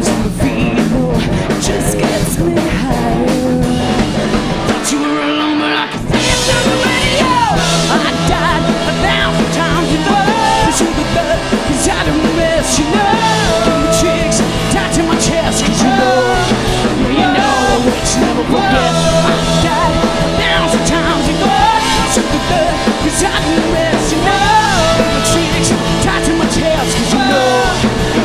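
Glam-punk rock band playing live, with singing over the band. The bottom end drops out briefly about five seconds in, then the full band comes back in.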